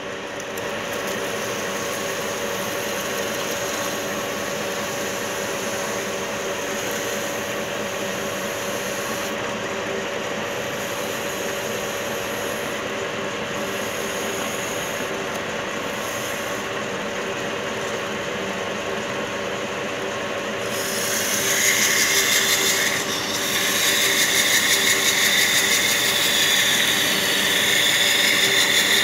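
Metal lathe running steadily with a spinning steel sleeve, a steady machine hum. About two-thirds of the way in, a louder hiss starts as something held by hand works against the spinning steel; it breaks off briefly and then carries on.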